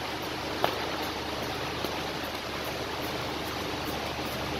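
Steady rushing background noise, like air handling in a large room, with one sharp click about half a second in.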